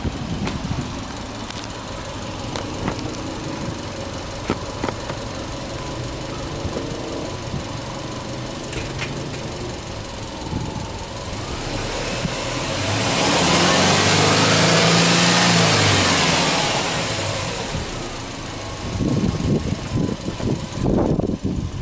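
Subaru Impreza WRX STI's turbocharged flat-four (boxer) engine idling steadily, then revved once in neutral: the revs climb over a couple of seconds, hold, and drop back to idle. Wind buffets the microphone near the end.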